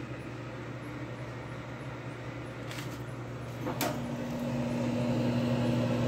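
Vintage Sharp Carousel solid-state microwave oven running, a fairly quiet steady hum. A little under four seconds in there is a click, after which the hum gets louder with a steady tone added.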